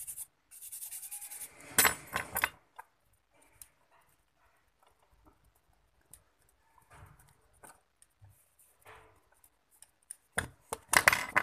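Toothbrush scrubbing a phone circuit board in quick, even strokes for the first second and a half while its contact points are cleaned with solvent. Sharp clattering handling noises follow, loudest about two seconds in and again near the end, with faint scattered clicks between.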